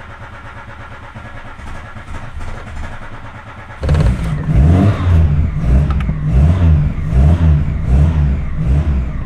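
Mk2 VW Golf's Weber-carburetted four-cylinder petrol engine running, just after a new carburettor base gasket has been fitted to cure the air leak that kept it from idling. It is quieter for the first few seconds, then about four seconds in it gets much louder and pulses evenly about twice a second.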